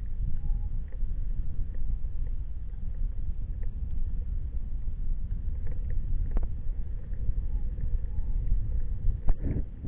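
Steady low rumble of a moving vehicle with wind on the microphone, and a few short knocks, the loudest a little before the end.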